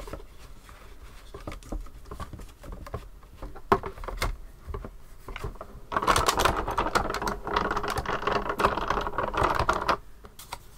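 Scattered clicks and taps as acrylic cutting plates are handled, then, about six seconds in, a manual die-cutting machine is cranked for about four seconds. The plate sandwich grinds and crackles through the rollers, and the sound stops abruptly. A shim has been added to the sandwich, so the die embosses the card rather than cutting it.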